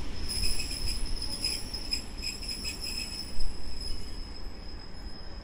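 EN57AKM electric multiple unit pulling out and moving away: low rumble with a steady high-pitched whine and light clicking from the wheels, fading as the train draws off.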